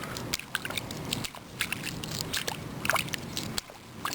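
Wet handling noise: irregular clicks and scrapes as a plastic sprinkler body is screwed onto a water-filled underground fitting, with water sloshing in the hole.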